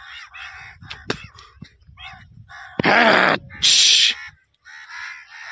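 A flock of crows cawing, short harsh calls coming every half second or so. About three seconds in come two much louder harsh bursts close together.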